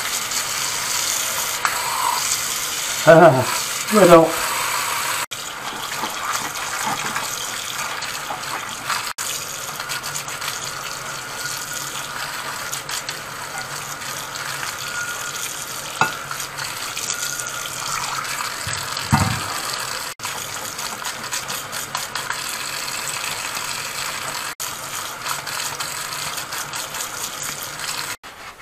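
Tap water running onto cast iron pans in a ceramic sink while a washing-up brush scrubs off the factory shipping oil, with a couple of knocks as the pans are handled.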